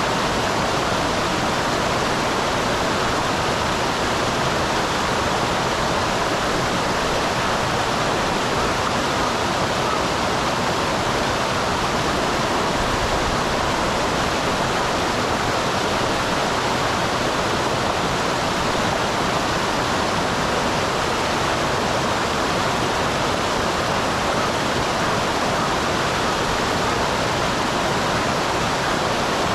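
Small waterfall on a mountain stream: water falling and rushing in a steady, unbroken roar.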